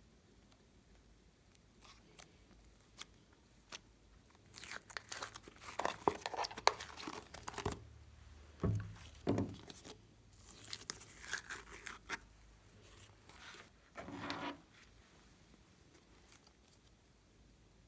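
Hands handling crinkly material in irregular bursts of crinkling and crackling with pauses between, and a couple of dull low thumps about halfway through.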